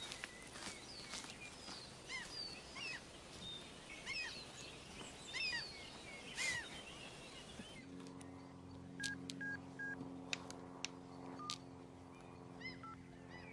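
Birds chirping over quiet outdoor ambience. About eight seconds in this gives way to soft background music of held, sustained tones, with occasional short high beeps and light clicks.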